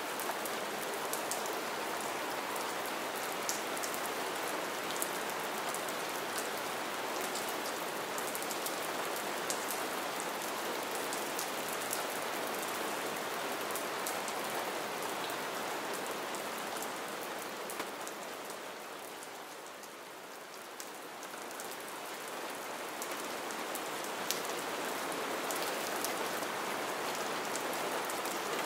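Gentle, light rain falling steadily: an even hiss of rain with scattered single drop ticks. It softens for a few seconds about two-thirds of the way through, then builds back.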